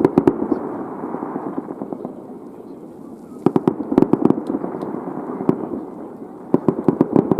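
Aerial fireworks bursting in three volleys of rapid sharp bangs, at the start, around the middle and near the end, with a continuous rumble of echo and distant bursts between them.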